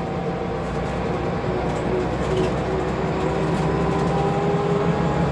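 Scania diesel single-deck bus running, heard from inside the saloon: a steady engine drone with a gearbox whine that rises a little in pitch and grows slightly louder over the second half, as when the bus picks up speed.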